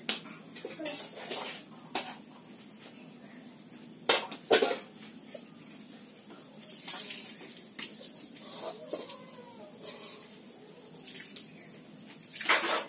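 Insects chirring steadily, with a few sharp knocks or clatters, the loudest a pair about four seconds in and another near the end, and a few faint short calls around nine seconds.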